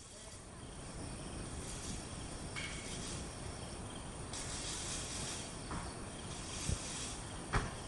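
Steady outdoor ambience of insects chirring, with two faint knocks near the end.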